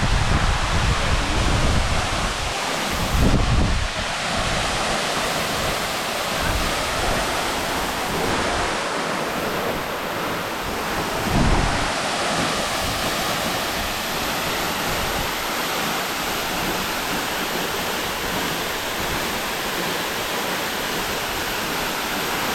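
Steady rushing roar of a waterfall. Low wind buffets hit the microphone near the start, again about three and a half seconds in and again about eleven seconds in.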